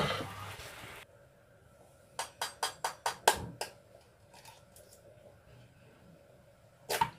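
A fork clicking against a plastic bowl in the kitchen: a quick run of about seven sharp clicks, a few fainter ones, then one louder knock near the end. It opens with about a second of hiss that cuts off suddenly.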